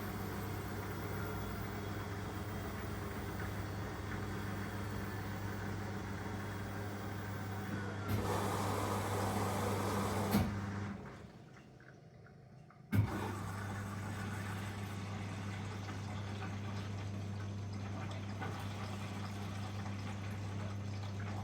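Washing machine between rinses: a steady mains hum typical of its drain pump, turning to a gurgling rush as the pump draws air at the end of emptying. It cuts off with a click, and after about two seconds of quiet another click brings the same steady hum back.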